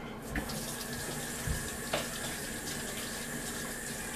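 Kitchen faucet running steadily into the sink, turned on a moment after the start, with a few light knocks and clatters over the water.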